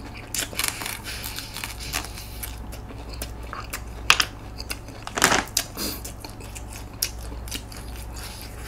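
A person chewing food close to the microphone: a run of short mouth clicks and smacks, with two louder, longer noises about four and five seconds in.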